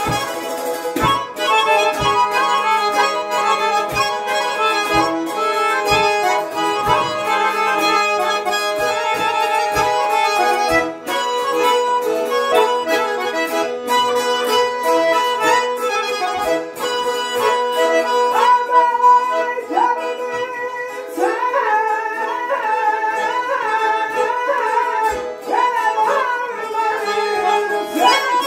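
Garmon (Azerbaijani button accordion) playing a folk melody together with a saz, with regular low beats about once a second through the first half.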